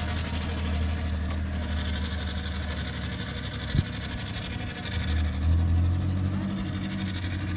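Vehicle engine running steadily at low revs while crawling along in a slow convoy, a low drone that swells briefly about two-thirds of the way through. A single sharp knock sounds near the middle.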